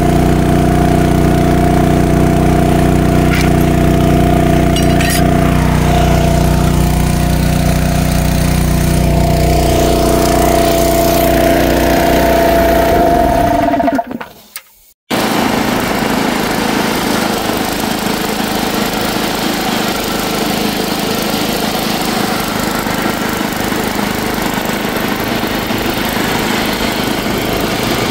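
Bolens 1050 garden tractor engine running steadily, then winding down and stopping about fourteen seconds in. After a short silence the tractor runs again, rougher and noisier, with the mower deck cutting tall grass under load.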